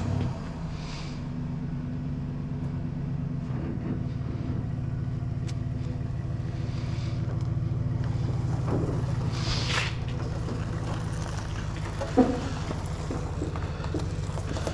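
A motor vehicle engine, started moments before, running steadily at low revs while it moves the trailer. It gets a little louder in the middle. A short hiss comes about two-thirds of the way through and a sharp knock a little later.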